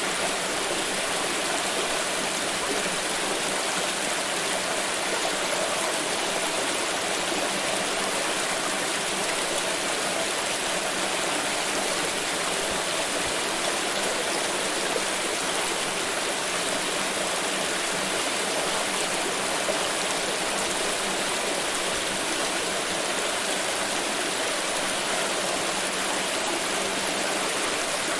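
Water pouring in a steady, unbroken rush that holds an even level throughout.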